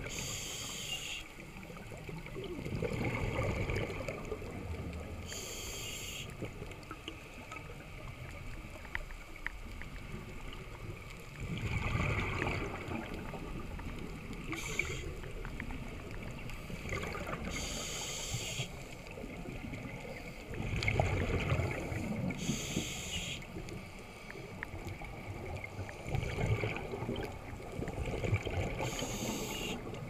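Scuba diver's regulator breathing heard underwater: about six short hissing inhales a few seconds apart, with low bubbling rumbles of exhaled air between them.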